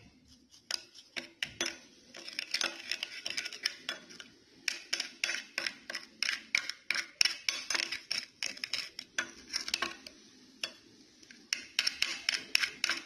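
Metal spoon stirring a wet strawberry, sugar and coconut-oil mixture in a small glass bowl: quick repeated clinks and scrapes of spoon against glass, pausing briefly twice.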